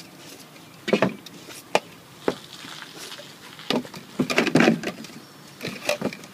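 Empty plastic yogurt containers knocking and scraping against the floor of a plastic storage bin as they are set in place one by one: a string of short hollow clacks, busiest around four to five seconds in.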